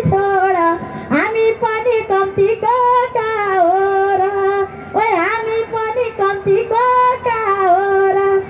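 A woman singing a Nepali dohori folk song into a microphone. Her single voice holds long notes that waver and bend, broken by quick ornamented turns.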